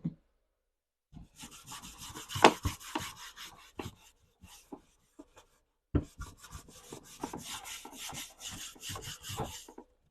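Rapid back-and-forth rubbing strokes on a hard surface, as when scrubbing or wiping something clean. They come in two runs of a few seconds each with a short pause between, and a knock opens the second run.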